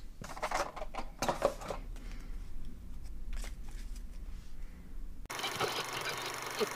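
Cards being handled and shuffled by hand: a few brief papery rustles and flicks. About five seconds in the sound cuts abruptly to a steady hiss.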